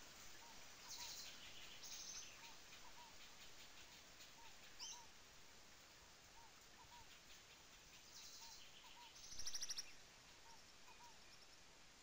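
Faint steady rush of a small forest waterfall under bird calls: a soft pair of short low notes repeats over and over, and several quick high trills break in, the loudest about nine and a half seconds in.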